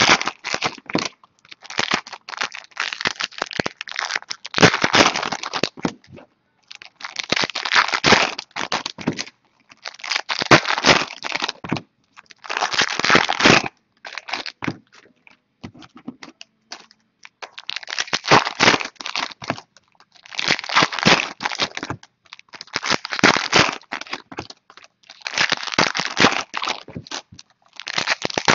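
Foil trading-card pack wrappers being torn open and crinkled, one pack after another. The crackling comes in about a dozen short bursts, one every two to three seconds.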